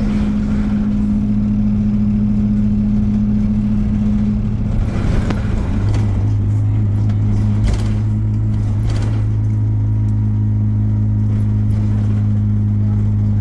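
Alexander Dennis Enviro400 double-decker bus running, heard from on board: a steady low engine and drivetrain drone that shifts lower about six seconds in, with a few brief rattles and clatters.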